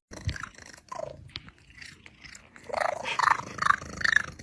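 A cat's wavering, drawn-out yowl with growling, starting about halfway through, after a soft knock near the start.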